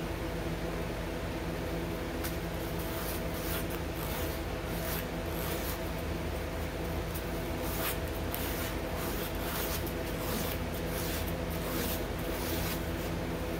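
Sandpaper rubbed by hand over a harmonica mouthpiece slider, in irregular short scratchy strokes, bunched in spells a couple of seconds in and again from about eight seconds, over a steady low hum.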